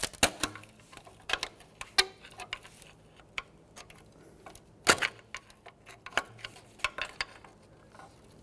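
Irregular metallic clicks and scrapes of a pry bar working against the coil spring on the parking brake cable end, prying the spring back to release the cable from the parking brake lever. A sharper knock stands out about five seconds in.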